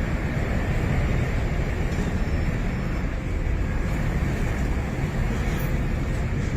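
Strong tornado wind roaring steadily and buffeting the microphone with a deep, continuous rumble.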